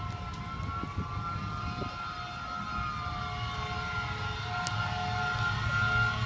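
Fire engine siren wailing with a slow glide in pitch over the steady low rumble of the truck's engine and road noise, growing louder toward the end.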